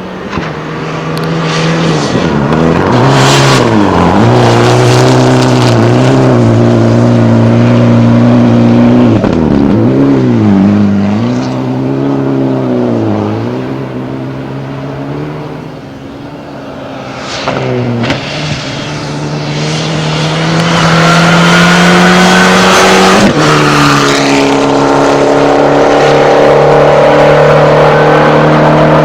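Rally prototype car's engine running hard, its pitch dropping and climbing back several times as the driver lifts off and changes gear. After a quieter spell about halfway through, it pulls up in a long rise, with a sudden drop in pitch at a gear change, and holds high to the end.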